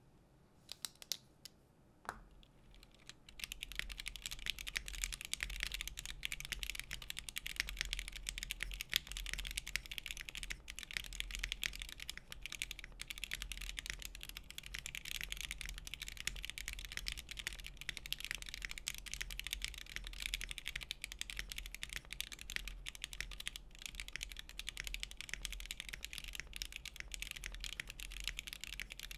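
Mechanical keyboard being typed on: a Monokei x TGR Tomo in top-mount build with a full aluminium plate, stock Gateron CJ switches and NicePBT PBT keycaps. A few separate key presses in the first two seconds, then fast continuous typing from about three seconds in.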